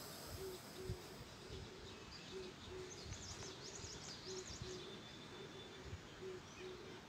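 A soft hiss of breath drawn in through a tongue curled into a tube (Sitali pranayama), ending about a second in. After it comes quiet garden ambience: a bird hooting in short low pairs of notes every second or two, and faint high chirps near the middle.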